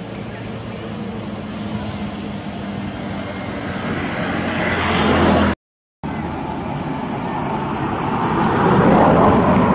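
Engine noise of a passing motor vehicle: a steady low hum under a broad rushing sound that swells to a peak, cuts off abruptly for a moment, then swells again with a second pass near the end.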